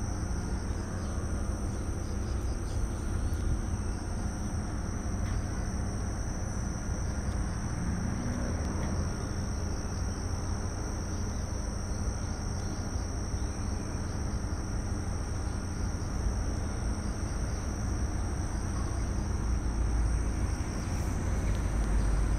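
Steady, high-pitched chorus of insects, a continuous shrill drone without pause, with a low rumble underneath.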